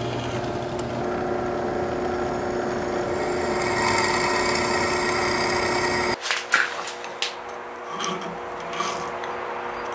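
Benchtop drill press motor running steadily while the bit drills through a steel knife blank, the cutting noise growing louder after a few seconds. About six seconds in it stops abruptly and a small hand file scrapes in the drilled holes in a few separate strokes.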